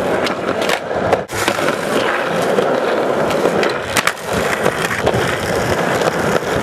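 Skateboard wheels rolling over a concrete path, with a few sharp clacks of the board hitting the ground, the loudest about four seconds in.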